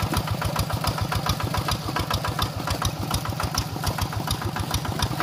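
Single-cylinder diesel engine of a two-wheel hand tractor chugging steadily under load as it drives its cage wheels through a flooded rice paddy. It makes an even beat of about eight to nine pulses a second.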